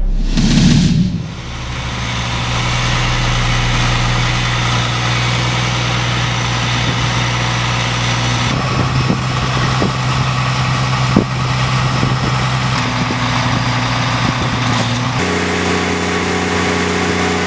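Engine of a BRON 450 tracked drainage plow running steadily after a short whoosh at the very start. A few sharp clanks come through around the middle, and the engine's tone shifts abruptly twice.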